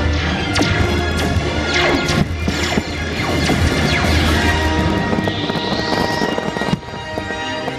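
Fireworks launching and bursting in a rapid series of sharp cracks and bangs over the show's music from the park speakers. A rising whistle sounds about five seconds in, and the music drops away near the end.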